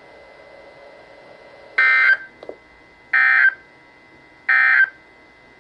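Three short, identical bursts of warbling data tone from NOAA Weather Radio's Emergency Alert System, about a second and a third apart, over low radio hiss. These are the SAME end-of-message bursts that close a broadcast warning.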